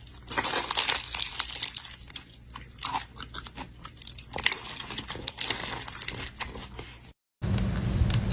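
Close-miked crunchy biting and chewing of crisp food, a string of sharp crackles and crunches. It breaks off abruptly about seven seconds in, and a steady rough noise starts after a brief gap.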